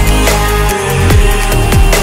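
Electronic background music with a steady, heavy beat.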